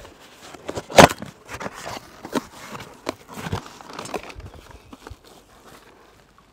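A cardboard shipping box is opened by hand: one loud sharp rip about a second in, then scattered rustling and scraping of cardboard and packaging that fade out near the end.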